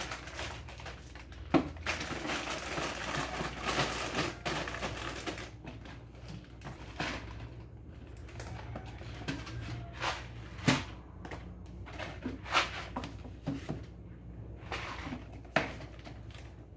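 Groceries being handled and put away on kitchen cupboard shelves: packaging rustling for the first few seconds, then several sharp knocks as packets and containers are set down.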